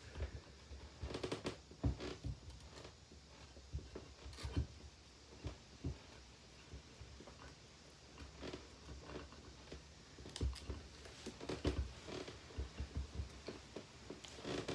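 Irregular clicks, knocks and rustles of hands and a cutting tool working on the plastic housing and tough internal wire of a disassembled Bissell handheld vacuum cleaner.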